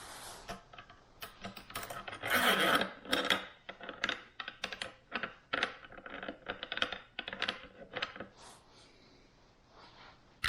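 Hand tools and small metal parts of an ARB dual air compressor clicking, clinking and scraping irregularly as a part is worked loose, with a denser scraping patch about two seconds in.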